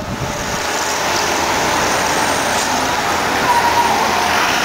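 Road traffic noise: a steady rushing of passing vehicles, growing louder about a second in.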